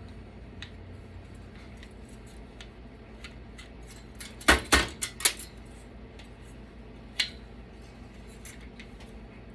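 Small metal clicks and clinks of computer parts and hand tools being handled while a desktop PC is taken apart, with a quick run of sharp clinks about halfway through and one more a couple of seconds later.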